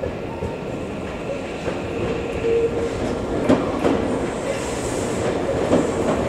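Tokyu 2000 series electric train running slowly into a station platform, its wheels clicking over rail joints and points.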